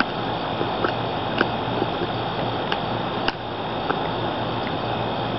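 American Pit Bull Terrier gnawing on a deer head, her teeth giving a few sharp, scattered clicks and cracks on bone and hide over a steady background noise.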